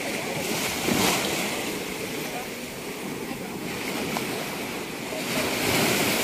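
Open-sea water washing and lapping, with wind buffeting the microphone in gusts that rise and fall.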